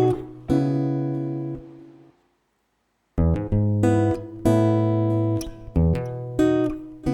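Background music: plucked acoustic guitar notes, which fade out to silence for about a second partway through and then start again.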